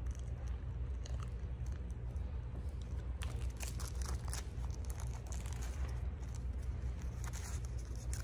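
Quiet room tone: a steady low hum with faint, scattered small clicks and rustles, a little busier from about three seconds in.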